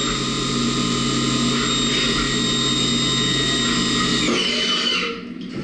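Haas Mini Mill 2 CNC mill cutting 6 mm steel plate under flood coolant: a steady high spindle whine over hissing coolant and cutting noise. About four seconds in, the whine slides down in pitch and the sound drops away.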